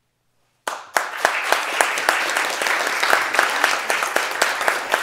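A moment of silence, then audience applause starts suddenly just over half a second in and continues steadily, many hands clapping with a few sharp individual claps standing out.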